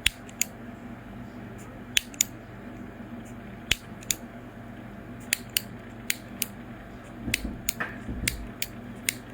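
Zippo butane lighter insert clicking sharply about twenty times at irregular intervals, over a steady low hum.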